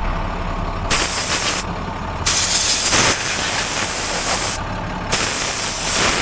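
Compressed-air blow gun on a coiled hose, fed from the truck's air-ride seat line, firing three blasts of hissing air: a short one about a second in, a longer one from about two to four and a half seconds, and another from about five seconds on. The truck's engine idles underneath.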